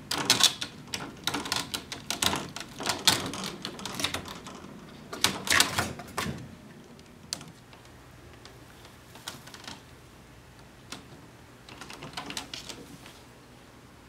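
Persian kitten's claws clicking and scrabbling on a window screen as it climbs: a quick run of sharp clicks and rattles for the first six seconds or so, then a few scattered clicks and a short burst near the end.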